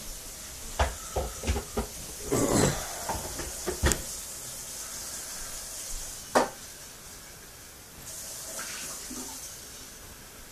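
Broken mirror glass clinking and scraping as shards are moved or stepped on. A quick run of sharp clinks comes first, then a short gritty scrape, then single sharp clinks, the last about six seconds in.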